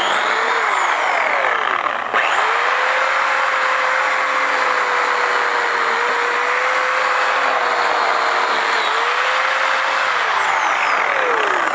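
Portland electric pole saw's motor and chain running, cutting pine branches for firewood: its whine drops off about a second in, the motor is briefly released and spins back up at around two seconds, runs steadily, then winds down near the end.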